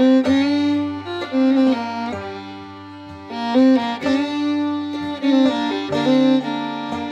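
Instrumental background music: a melody of held notes, changing about every half second, over accompaniment.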